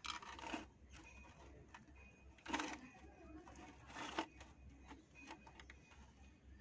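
Kittens scrambling over a mesh mat and cloth: faint rustling and scratching, with three brief louder scuffs.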